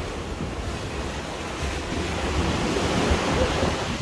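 Storm-driven heavy seas: waves breaking and surging in a steady rush that swells louder about three seconds in, with wind buffeting the microphone.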